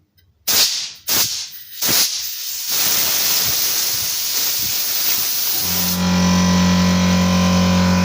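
Compressed-air blowgun blasting air through a chainsaw carburetor to clear it after brake cleaner: three short blasts, then a long continuous hiss. About five and a half seconds in, a steady low hum joins the hiss.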